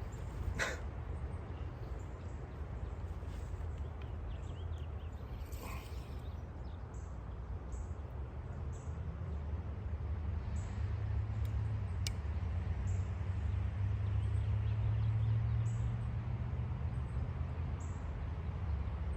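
Quiet outdoor background: a low rumble that swells from about ten seconds in and eases near the end, with faint bird chirps and a couple of light clicks.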